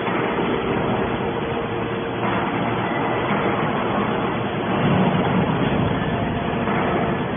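Hydraulic scrap metal baler running: a steady mechanical hum with a held tone from its motor and hydraulic pump, growing louder about two seconds in and loudest around the middle.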